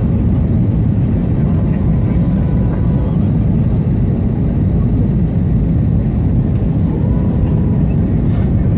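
Steady, loud cabin noise inside an Airbus A321 airliner on descent: the low rumble of the jet engines and rushing air, heard from a window seat over the wing.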